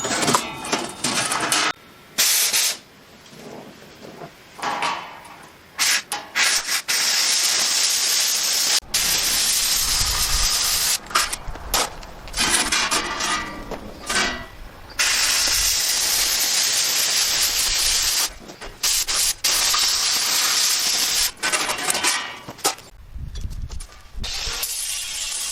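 MIG welding: the arc crackles and hisses steadily in several beads a few seconds long, each starting and stopping abruptly with short breaks between.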